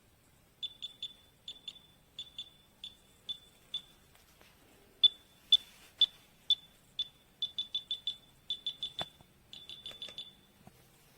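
MiLESEEY laser distance meter beeping: short, high single-pitch beeps in quick pairs and triples, then a few louder single beeps, then fast runs of beeps. A sharp click about nine seconds in.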